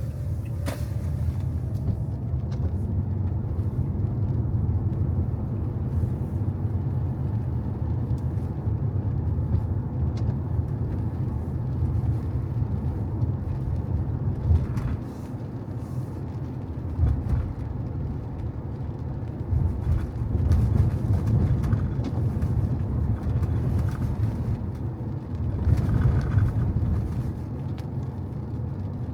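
Car driving on rain-wet roads: a steady low rumble of engine and tyres, with a few faint ticks. It dips briefly about halfway through and swells again a few times.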